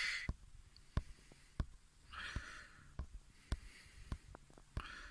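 A quiet pause with a person's soft breath out about two seconds in and another near the end, and a dozen or so faint, sharp clicks scattered irregularly through it.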